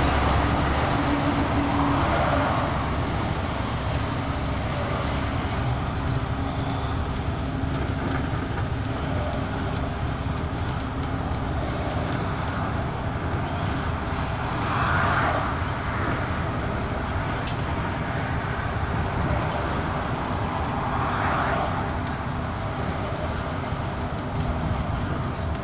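Bus interior at motorway speed: steady engine and road noise with a low rumble, and a few brief swelling whooshes as traffic goes by.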